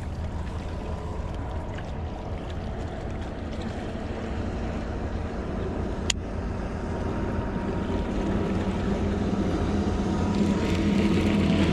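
Motorboat engine running with a steady low hum that grows louder toward the end as the boat comes closer. A single sharp click about six seconds in.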